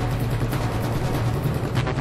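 Background music with a heavy low drone and a sharp hit near the end.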